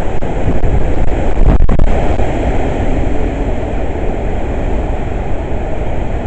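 Hurricane-force wind blowing hard and loud, with a stronger gust about one and a half seconds in.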